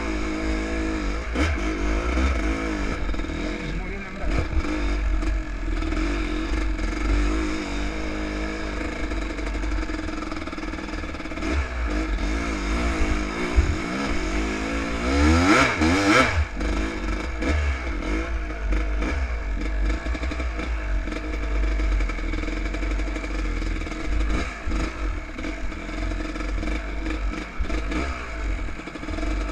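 Enduro motorcycle engine revving up and down as it is ridden, with a sharp hard rev about fifteen seconds in.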